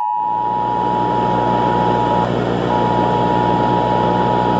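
A steady emergency-alert attention tone near 1 kHz over loud static and a low buzzing hum, the tone dropping out briefly a little over two seconds in.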